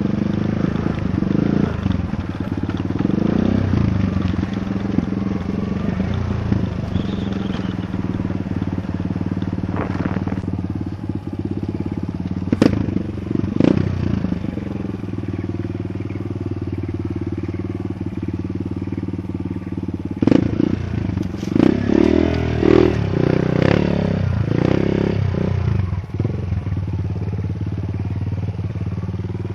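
Kawasaki KLX dirt bike's single-cylinder four-stroke engine running at low, steady revs as the bike rolls down a steep, rutted dirt trail. Sharp knocks and clattering come from the bike jolting over the ruts, a few around ten to fourteen seconds in and a denser cluster about twenty to twenty-five seconds in.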